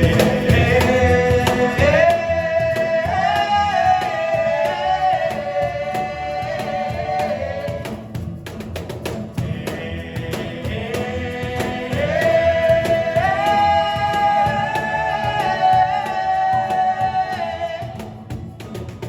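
Folk band music with a voice holding long sung notes, in two long phrases, the second starting about ten seconds in, over steady accompaniment.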